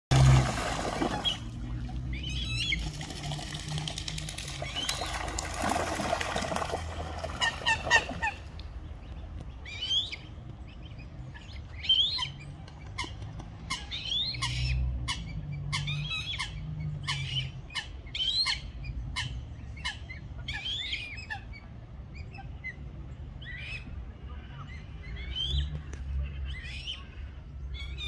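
Coots fighting on the water: heavy splashing and wing-beating for about the first eight seconds, loudest at the very start. Then a long run of short, sharp bird calls about every half second, over a steady low rumble.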